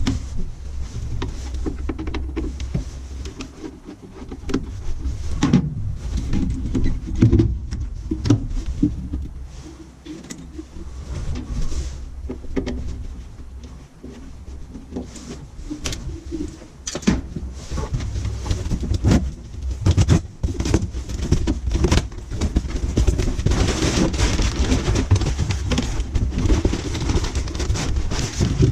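Irregular clicks, knocks and clatter of tools and metal parts being handled during the swap of a furnace inducer motor, over a steady low hum.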